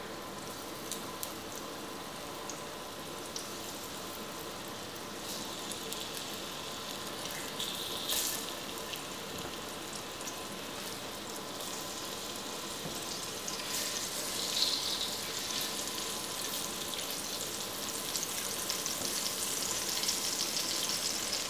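Hot olive oil and drippings sizzling quietly in a ceramic-coated cast-iron Dutch oven as halved potatoes are set into it, with a few soft knocks of the potatoes going in.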